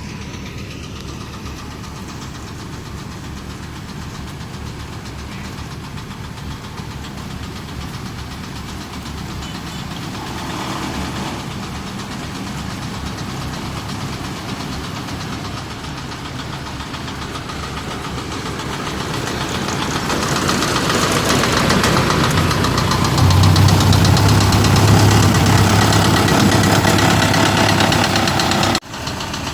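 Kubota DC-75 combine harvester's diesel engine running steadily, growing louder about two-thirds of the way in and taking on a strong low hum, then briefly cutting out just before the end.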